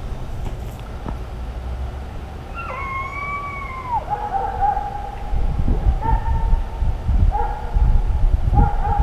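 Deer hounds baying: one long howl that drops off at its end, then a run of shorter bawls about a second apart, growing louder toward the end. The dogs are giving tongue on a deer's scent trail.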